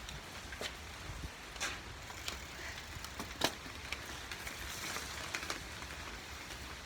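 Bicycle ridden on wet pavement in the rain: a steady hiss of tyres and rain over a low rumble, broken by several sharp clicks, the loudest about three and a half seconds in.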